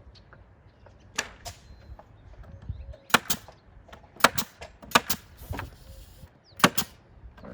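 Nails being driven into cedar fence pickets: sharp knocks on wood in quick clusters of two or three, one cluster about every second.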